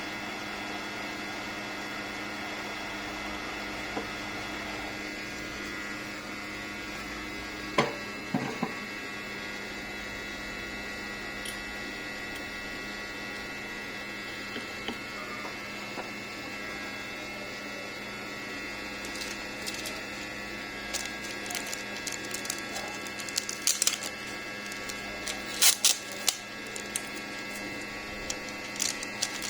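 Steady electrical hum with several level tones. A lower tone stops with a click about eight seconds in, and small clicks and taps come scattered through the last third.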